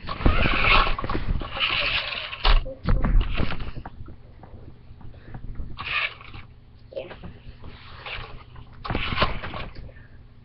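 A toy remote-control car's electric motors whirring in short bursts as it flips and spins on carpet, with a few knocks as it tumbles.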